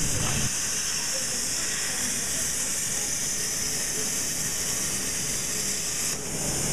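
CNC plasma cutter torch cutting steel plate: a steady, loud hiss of the arc and air jet, which dips briefly about six seconds in.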